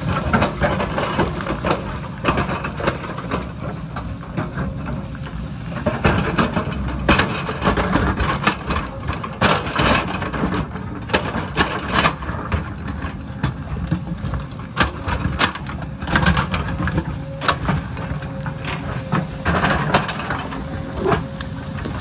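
JCB tracked excavator's diesel engine running steadily under load while its steel bucket digs and scrapes through rocky soil, with repeated knocks and clatter of stones and dirt spilling down the slope.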